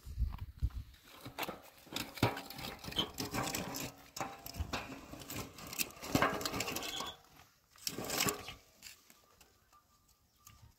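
Dry twigs and brushwood crackling and snapping as they are handled and broken, in a dense run of quick clicks and cracks that thins out after about eight seconds.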